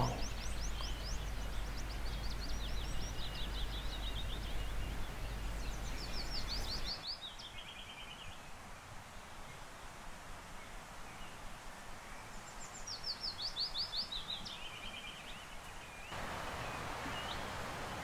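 Willow warbler singing: three songs, each a quick run of sweet notes falling down the scale and fading out, a few seconds apart.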